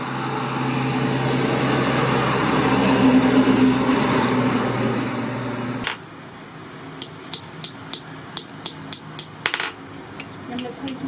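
A steady whirring machine noise with a low hum for about the first six seconds, ending suddenly; then a hand hammer taps on a steel anvil, about three light, ringing strikes a second, while a small steel tube is worked.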